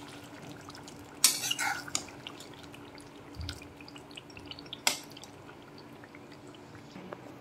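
Thick mutton karahi gravy simmering in a karahi, with many small bubbling pops. A metal spatula clinks and scrapes against the pan about a second in and again shortly before five seconds, and a faint steady hum runs underneath.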